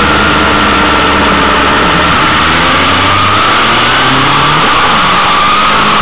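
A road vehicle's engine running hard at speed, mixed with loud road and wind rush from a camera mounted close to the tarmac. The engine pitch climbs for about a second, then drops sharply just before five seconds in.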